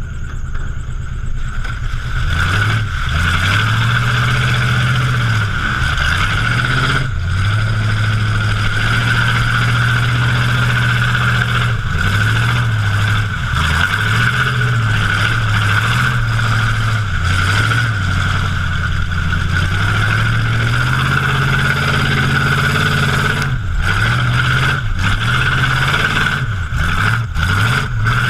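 Mud truck's engine revving up and down again and again as its tyres churn through a mud pit, the pitch rising and falling every couple of seconds over a steady hiss.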